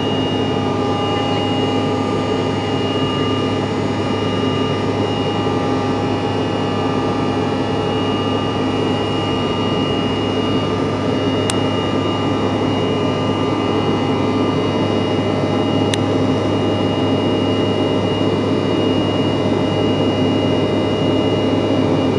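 A CRJ-700 airliner's rear-mounted GE CF34 turbofan engines running steadily, heard as jet noise from inside the cabin: a dense rumble with a fixed whine on top. Two faint clicks come in the second half.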